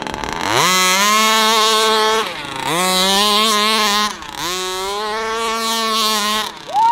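36cc single-cylinder two-stroke petrol engine of a large-scale RC buggy revved hard three times at full throttle, each time rising to a high, steady buzz for one to two seconds before dropping back.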